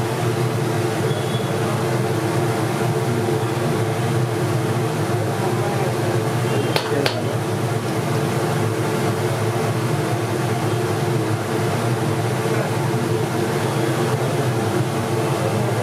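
A steady mechanical hum with a few held tones, unbroken throughout, and one short sharp click about seven seconds in.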